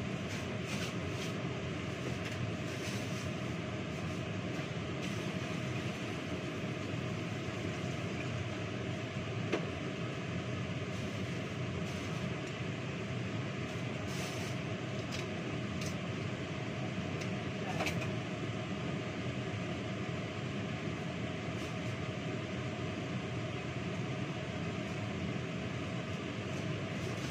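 Electric fan running with a steady whir, with a few light knocks from kitchen handling about ten and eighteen seconds in.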